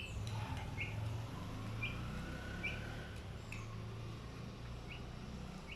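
Chick peeping: short high peeps about once a second, over a low steady hum.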